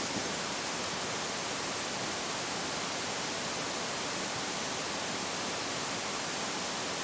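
Steady hiss of analog television static, even and unchanging.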